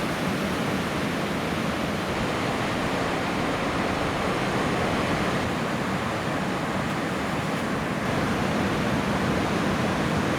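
Ocean surf from a typhoon swell, a steady rushing of breaking waves.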